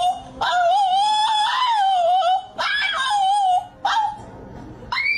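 A dog whining in several long, wavering, high cries with short breaks between them.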